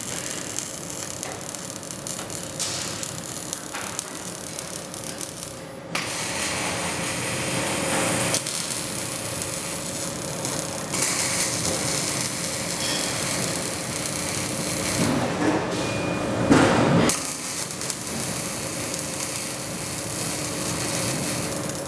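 Robotic arc welding on steel: the continuous crackling hiss of the welding arc over a steady machine hum. It gets louder about six seconds in and swells briefly near sixteen seconds.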